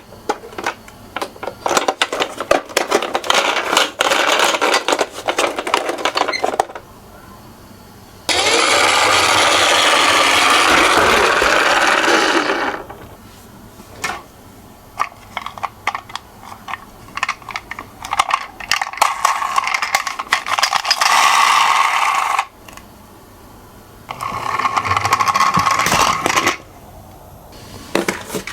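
Toy minicars rolling down a sloped track: rapid clicking and rattling of small wheels and bodies, broken by a steady rolling rush that lasts about four seconds.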